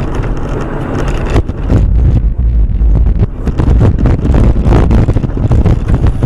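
A vehicle's loud low rumble, heavily buffeted by wind on the microphone, with irregular gusting crackle.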